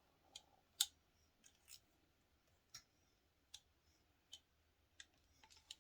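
Faint, sharp clicks and clacks of a hair flat iron being handled, about ten in all, the loudest about a second in and the later ones coming roughly every three-quarters of a second.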